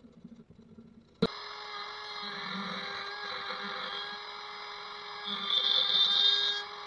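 A handheld router clamped upside down starts sounding abruptly about a second in, already at speed with a steady high whine. From about five seconds in the sound turns louder and rougher as a mahogany blank is fed against the spinning bit to shape its edge.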